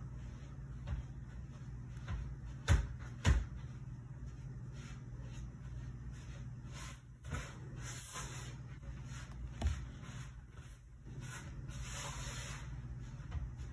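Handling noise from nail tools being worked by hand: soft rustles and light knocks, with two sharp taps about three seconds in and another near ten seconds, over a steady low hum.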